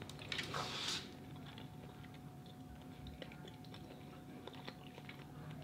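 A person eating seafood boil: a short noisy mouth sound about half a second in, then quiet chewing with faint scattered clicks.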